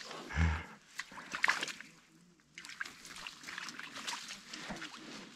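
A wet lift-net's mesh being handled by hand among reed stems: rustling and small clicks, with water dripping and trickling off the net.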